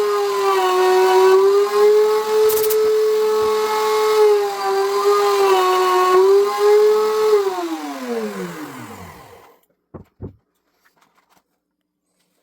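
Electric wood router running at high speed with a steady whine, its pitch dipping slightly now and then. About seven seconds in it is switched off and its pitch falls as the motor spins down over about two seconds, followed by two short knocks.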